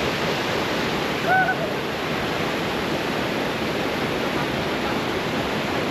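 A steady rushing noise with no change in level, and one short high chirp about a second and a half in.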